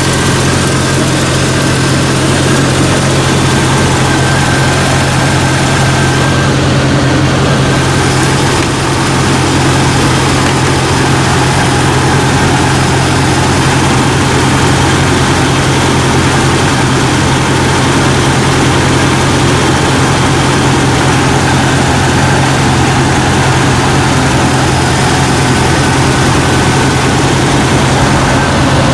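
Jeep Cherokee XJ's 4.0-litre straight-six engine idling steadily after a jump start, close to the microphone. The alternator is charging at about 14 volts, the sign of a good alternator.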